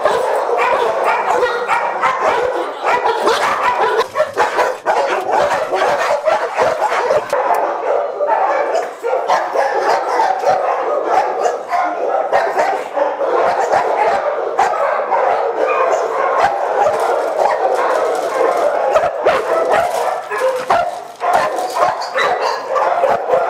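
Many dogs barking at once in a shelter kennel, a dense, unbroken din of overlapping barks with no pause.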